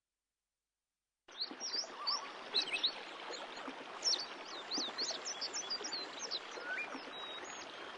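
Silence, then from about a second in a chorus of many birds chirping and singing, with quick high chirps over a steady background hiss.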